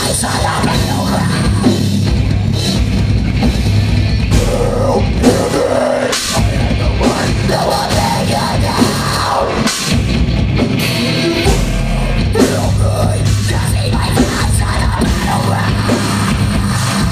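Metalcore band playing live and loud: heavy distorted guitars and bass over a drum kit, with a couple of short breaks partway through.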